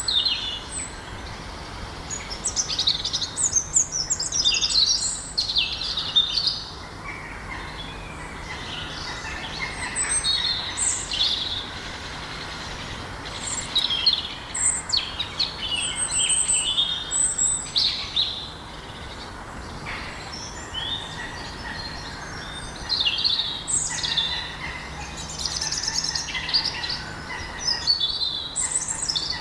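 Songbirds chirping and calling in quick high-pitched bursts, on and off throughout, with a faint steady low hum underneath.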